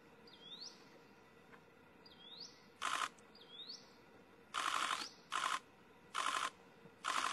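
Camera shutters firing in rapid bursts, five short bursts from about three seconds in and the loudest sound. Under them a bird repeats a short rising call about once a second.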